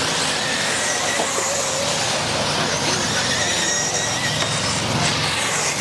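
Electric radio-controlled off-road buggies racing: a steady wash of noise with thin, high motor and gear whines that rise and fall as the cars speed up and slow down.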